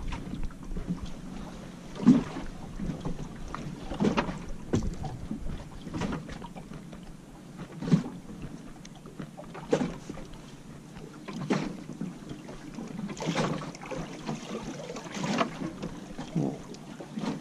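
Small waves slapping against the hull of a small boat at rest, a soft knock every second or two.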